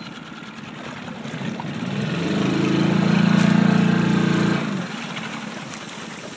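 Motorboat engine running, its drone swelling into a loud, steady hum for a couple of seconds midway through and then dropping back abruptly, over a constant background of engine and water noise.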